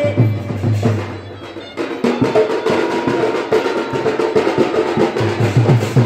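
Live folk drum ensemble playing a fast, even beat with a held melody line above it. The drumming drops back about a second in and comes back in full around two seconds in.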